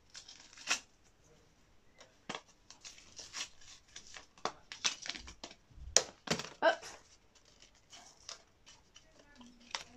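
Irregular plastic clicks, taps and rustling from hands working batteries into a battery-powered toy train engine.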